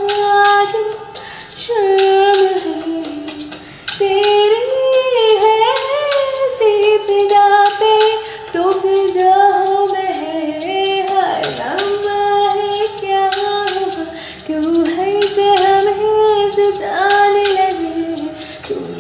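A woman singing an old Bollywood film song, holding long notes and gliding between them, with short pauses between phrases.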